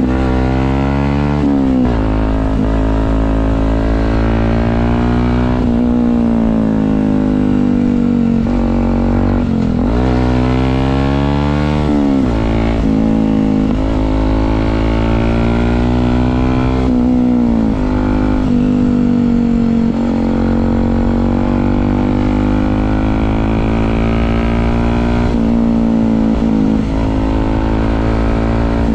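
Yamaha WR125 supermoto's single-cylinder four-stroke engine through an aftermarket exhaust, ridden at road speed. Its pitch rises under acceleration and falls back several times, between stretches of steady cruising.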